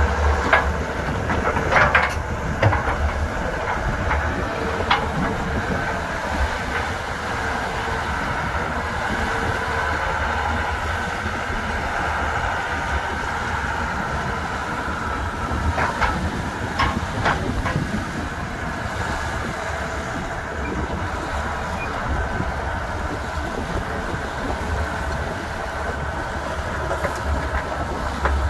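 CAT 315C L tracked excavator's diesel engine running under load while its steel tracks clank, with a few sharper knocks scattered through as the machine crawls up onto a steel barge.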